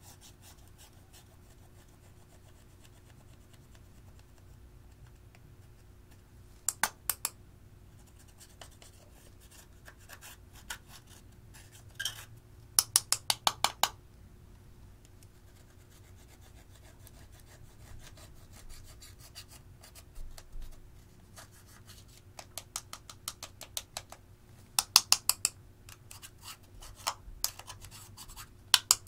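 A small metal tool scraping and chipping pressed eyeshadow out of its compact pan, in short bursts of quick scratchy strokes. The loudest bursts come about halfway through and again near the end.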